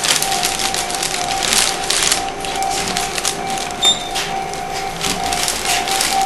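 A Japanese railway level-crossing warning bell rings in its steady alternating two-tone pattern, over surges of rushing noise. A short high beep sounds about four seconds in.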